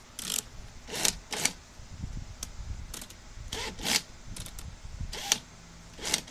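Power drill driving a small screw into the grille in short bursts, about eight or nine brief whirring spurts, with its clutch set to 21 to avoid snapping the screw.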